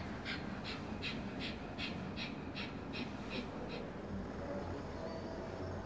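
A woman doing a rhythmic breathing exercise: short, sharp breaths at about three a second, which stop a little past halfway through.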